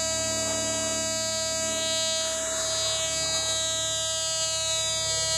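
Steady electronic buzz, rich in even overtones and unchanging throughout: the Fisher Gold Bug metal detector's threshold tone running. A faint rustle comes about two seconds in.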